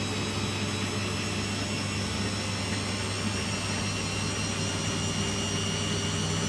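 Beko WTG620M1 washing machine spinning at speed: a steady whirring whine over a low hum, with several high motor tones.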